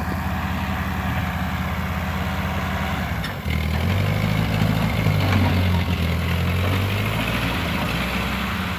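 Small farm tractor with a front loader, its engine running with a steady low beat as it drives. About three and a half seconds in the engine note gets louder, then eases back a little near the end.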